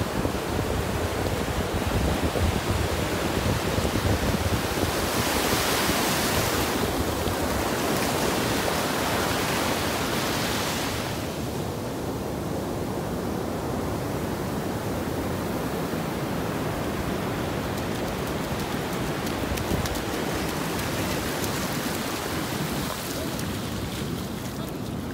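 Ocean surf washing onto a sandy beach, a steady noise with a low rumble of wind on the microphone. One wave's wash builds to a louder hiss about five seconds in and dies away some six seconds later.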